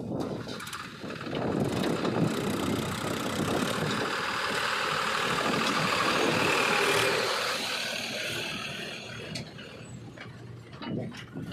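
A vehicle running, growing louder to a peak about seven seconds in and then fading.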